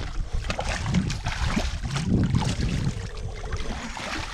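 Wind buffeting the microphone and water sloshing around a small boat, with scattered light knocks and clicks.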